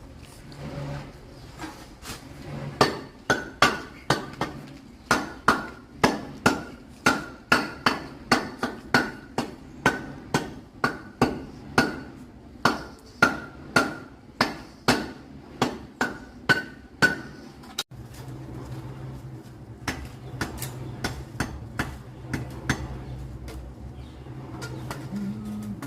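Hammer blows struck at a steady pace of about two to three a second, each with a short, high metallic ring, for about fifteen seconds. After a sudden break, a steady low hum with a few scattered knocks.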